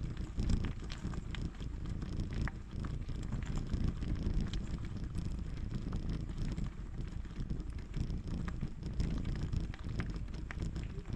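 Bicycle tyres rolling over a rough gravel road with a steady low rumble, scattered small clicks and rattles, and wind buffeting the microphone.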